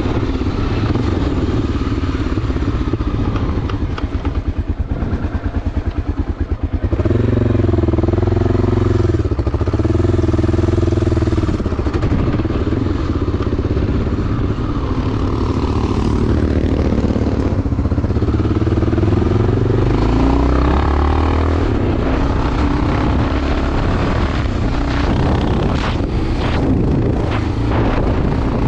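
Enduro motorcycle engine under way. It chugs at low revs for a few seconds about four seconds in, then revs up and down repeatedly.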